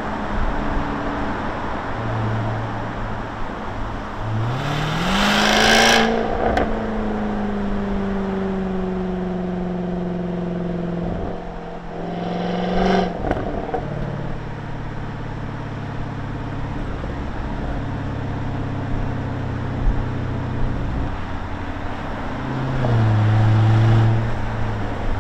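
2020 Jaguar F-Type R's supercharged 5.0-litre V8 and exhaust under way. About four seconds in it revs up hard and loud. It holds a steady note, then gives a short burst and a step down in pitch about twelve seconds in as it changes gear, and runs on steadily, swelling louder again near the end. Heard from the open cockpit with the roof down, so road and wind noise lies under the engine.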